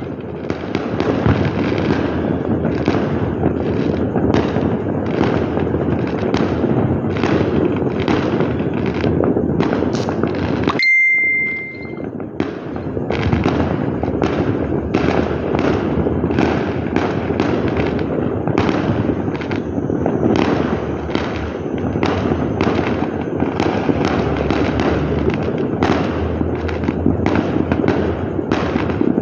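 Fireworks and firecrackers going off all around in a dense, continuous barrage of overlapping bangs and crackles. About eleven seconds in it breaks off briefly with a short high beep, then the barrage resumes.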